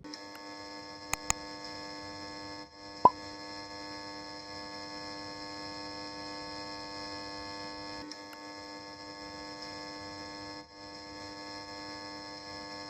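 A steady electrical hum made of several fixed tones, cutting out briefly three times. Two faint clicks sound about a second in, and a short falling blip about three seconds in.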